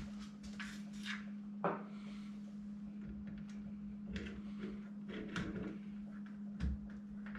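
Light clicks and knocks of deadbolt parts being handled and fitted into the door, with two sharper knocks, about two seconds in and near the end, over a steady low hum.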